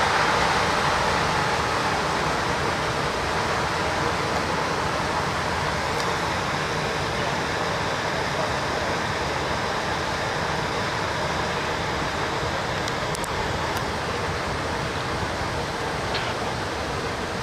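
Nitrogen venting from an overturned liquid nitrogen tanker trailer: a steady, loud hiss that eases off slightly over time, with a low rumble underneath.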